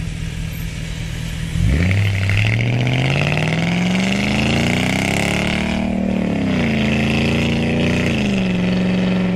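Jaguar XK8 V8 engine accelerating hard through the gears, heard from the open cockpit with the roof down. The engine note rises steadily and loudly from about two seconds in, dips once around six seconds in at an upshift, climbs again and then holds steady at cruising speed, with wind and road noise behind it.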